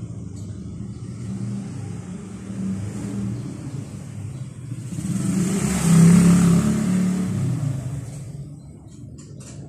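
Motorcycle engine running steadily, then revved up once in the middle, growing loudest about six seconds in before settling back down.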